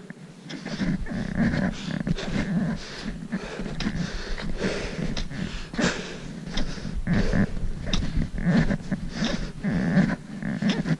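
Footsteps crunching in packed snow, with heavy, throaty breathing close to the microphone.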